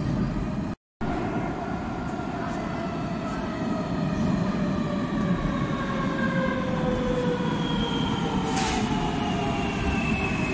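Madrid Metro Serie 3400 train arriving out of the tunnel and slowing into the station: a steady rumble with several electric whines falling in pitch as it brakes. There is a short hiss about eight and a half seconds in, and the sound drops out briefly just under a second in.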